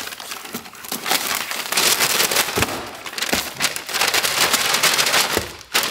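Plastic mailer bag crinkling and rustling as it is pulled out of a cardboard box and handled, with a few dull knocks.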